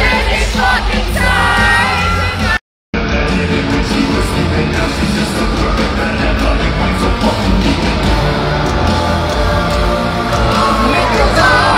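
Live heavy metal band playing loudly with a singer's voice, recorded on a phone from the crowd. The sound cuts out completely for a moment about three seconds in.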